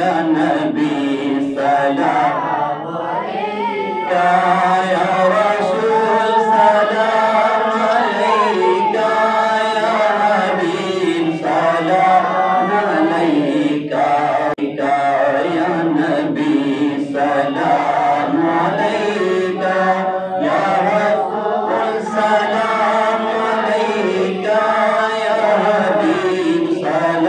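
A naat, a devotional song in praise of the Prophet, sung by a male voice in long melodic phrases over steady backing voices.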